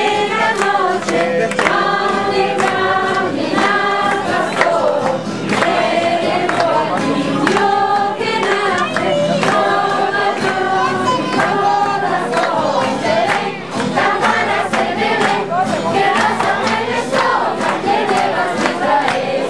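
A group of children and adults singing a Spanish Christmas carol together, with rhythmic strummed or percussive strokes keeping the beat.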